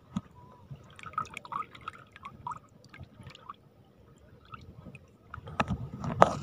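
Seawater dripping in small plips, then louder splashing in shallow water from about five and a half seconds in.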